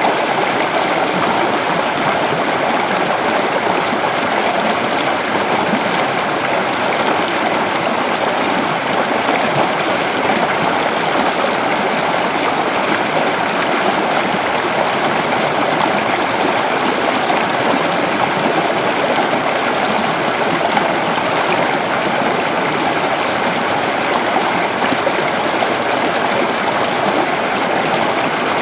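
Stream of water flowing steadily, an even rushing and babbling sound that does not change.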